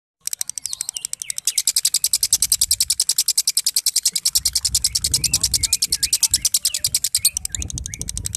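Fischer's lovebird singing a long, unbroken 'ngekek': a fast, even rattle of sharp chattering notes, about a dozen a second, that starts a moment in and carries on without a break. It is the non-stop ('konslet') ngekek that lovebird keepers prize.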